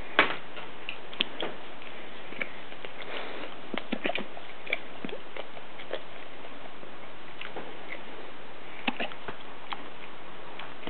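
Great Dane puppy licking and smacking its lips: scattered short wet clicks at an irregular pace, the loudest just after the start, over a steady hiss.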